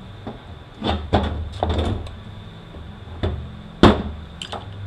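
A handful of sharp metal knocks and clanks as parts of a U760E automatic transmission are worked loose from the case. The loudest comes about four seconds in, over a low steady hum.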